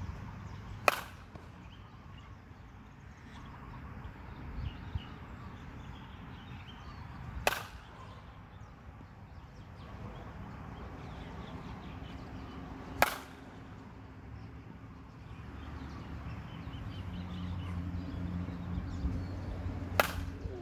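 Metal bat hitting pitched balls: four sharp cracks several seconds apart, each with a brief metallic ring.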